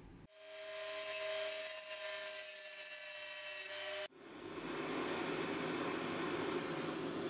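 A steady hiss with a faint high whine starts just after the start and cuts off abruptly about four seconds in. It is followed by a handheld butane blowtorch burning with a steady hiss.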